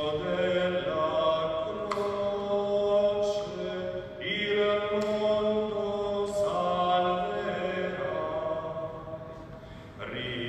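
A man's solo voice chanting a slow liturgical melody in long held notes, phrase after phrase, with short breaks for breath between them.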